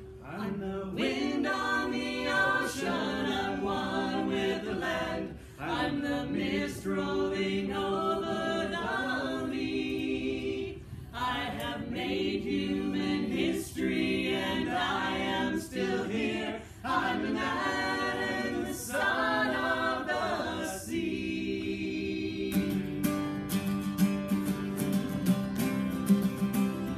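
Men and women singing a song together in harmony, mostly without accompaniment, in phrases with short breaks between them. Near the end the singing stops and an acoustic guitar starts strumming.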